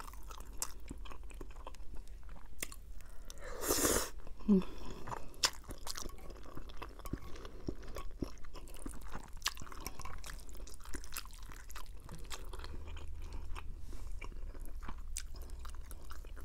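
Close-miked mouth sounds of a person chewing roasted chicken and fettuccine Alfredo: wet chewing and smacking with many small clicks, and one short louder noisy rush about four seconds in.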